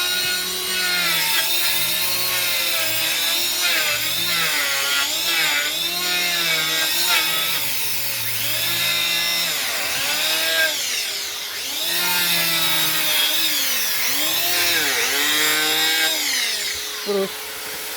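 Electric hand planer running and shaving wood, its motor pitch dipping and recovering over and over as the blades bite and ease off, over a steady rasping hiss of cutting.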